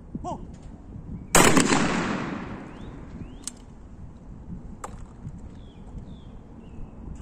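A single shotgun shot at a clay target about a second and a half in, loud, with a long echo fading over about a second and a half. Two sharp clicks follow, roughly a second and a half apart.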